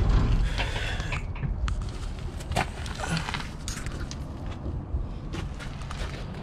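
Scattered light clicks and knocks from a hand-held camera being handled close to an excavator's steel track, over a steady low rumble.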